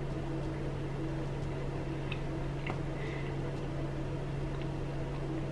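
A steady low hum, with a few faint crunches as a man chews a bite of toasted bread.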